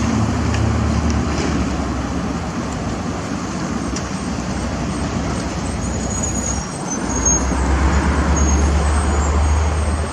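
Road traffic going past, with one vehicle passing close and loud in the second half.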